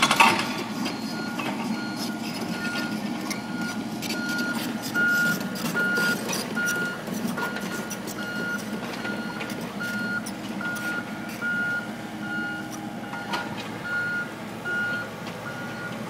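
Construction machine's backup alarm beeping steadily, a little faster than once a second, over the running diesel engines of demolition excavators, with scattered knocks and clatter of debris. A loud bang just as it begins.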